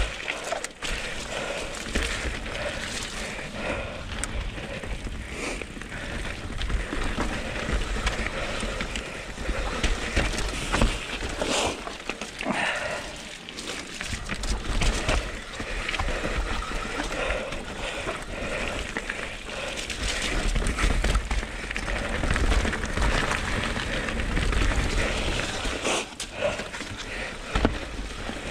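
Mountain bike riding down a rough dirt trail: tyres rolling and skidding over dirt and rocks, with the bike rattling and knocking over bumps. Gusts of wind buffet the camera microphone.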